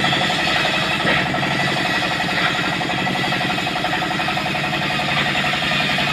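Large engine-driven circular saw ripping lengthwise through a trembesi (rain tree) log. The engine runs steadily under load while the blade cuts, with a constant grinding hiss of the blade in the wood.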